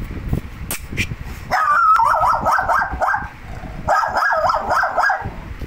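Lhasa Apso yelping in two quick high-pitched runs of short notes, each lasting about a second and a half.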